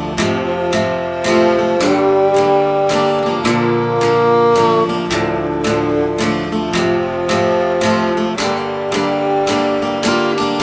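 Instrumental music: an acoustic guitar strummed in a steady rhythm, about three strums a second, with a violin playing long held notes over it.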